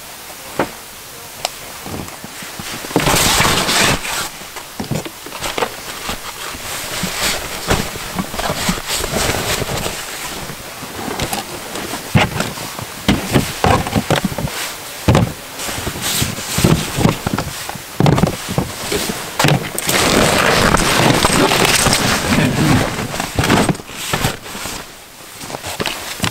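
Gear being packed into a dog sled's fabric sled bag: rustling and scraping of nylon with many irregular knocks and clunks of boxes and bags, louder rustling stretches near the start and about three-quarters of the way through.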